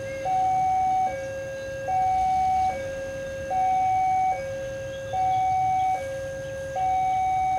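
Railway level-crossing warning alarm sounding a steady electronic two-tone hi-lo signal. The higher tone is the louder, and each tone lasts under a second. This signals that a train is approaching the crossing.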